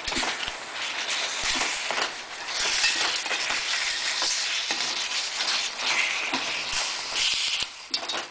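Raw chicken wings being tossed and turned in a sticky soy-and-sugar marinade in a stainless steel pan: wet sloshing and squelching that swells and fades in uneven waves, with occasional light clinks against the metal.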